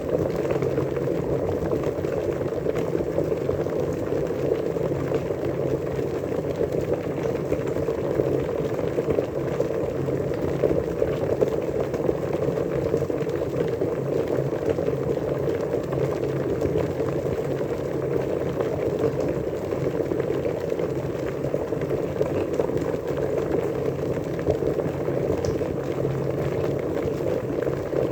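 Water at a steady rolling boil, a dense, continuous bubbling.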